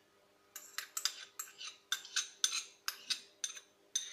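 Metal spoon scraping and clinking against bowls as thick yogurt is scraped out of a small china bowl into a glass mixing bowl: a quick run of short clinks, about four a second, starting about half a second in.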